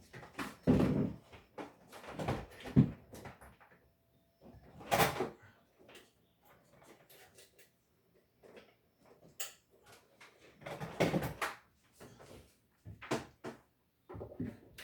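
Scattered knocks, bumps and clatter of things being handled and moved, in short bursts a few seconds apart, with sounds like a small door or cupboard opening and closing.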